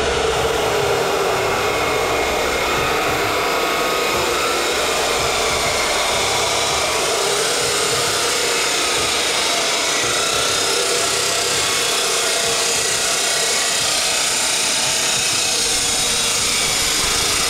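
Abrasive chop saw running steadily while it cuts steel exhaust tubing: a dense, even grinding noise with a faint motor whine that drifts slightly under load.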